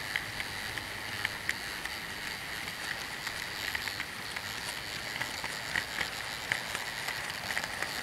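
00 gauge model train running along the track with the camera riding on it: a steady whir of motor and wheels, with irregular clicks as the wheels cross rail joints.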